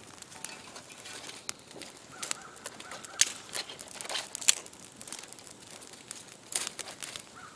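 Small campfire of dry twigs crackling, with sticks snapping and leaf litter crunching as kindling is fed onto it; irregular sharp cracks, the loudest about three seconds and four and a half seconds in.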